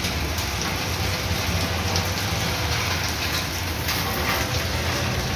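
Steady rain falling on a wet street and paving, an even hiss with a low steady rumble underneath.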